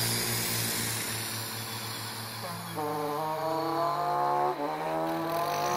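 Vocal mimicry of passing road traffic. One mouth-made engine note fades away, then a second vehicle starts up: its engine note rises, drops sharply about two-thirds of the way through as if shifting gear, and climbs again.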